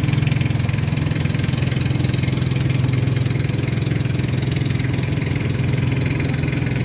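Boat engine running steadily under way, a low, even drone.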